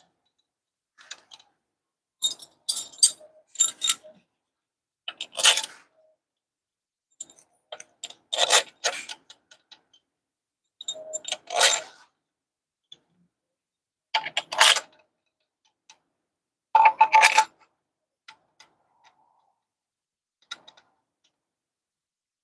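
Steel module bolts clinking against each other and the metal housing as they are picked up and set in place by hand, one short cluster of clinks every two to three seconds.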